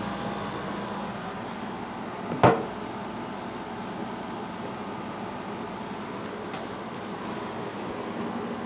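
Frigidaire 5000 BTU window air conditioner running steadily, its compressor and fan both working normally and giving an even whir with a faint hum. A single sharp knock sounds about two and a half seconds in.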